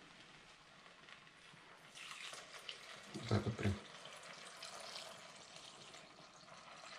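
Milk being poured from a small saucepan into a pot of cooked buckwheat, a steady splashing trickle that starts about two seconds in. A brief low-pitched sound stands out a little after three seconds.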